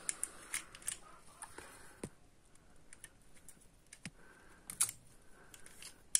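Scattered small metallic clicks and taps of a motorcycle battery's terminal bolts and wire ends being handled and fitted by hand, the sharpest click near the end.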